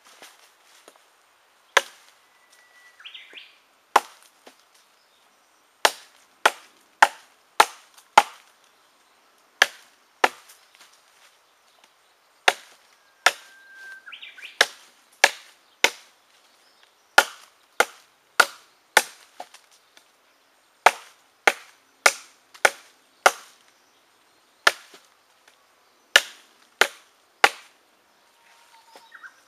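Heavy Bowie knife with an 11-inch, 6 mm thick 440C steel blade chopping into a log: about thirty sharp chops into the wood, often in quick runs of three to five at about two a second, with short pauses between runs.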